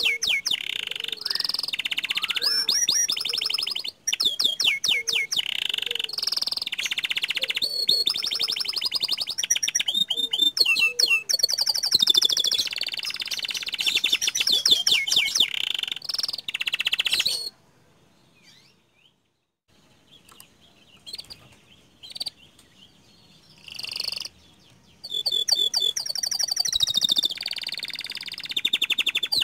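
Pied ('panda') domestic canary singing long rolling trills of rapid repeated high notes. The song breaks off a little past halfway for several seconds, then starts again.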